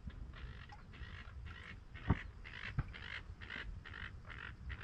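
A long run of duck quacks, evenly spaced at about three a second. Two sharp knocks cut in a little after two seconds and just under three seconds in, the loudest sounds here.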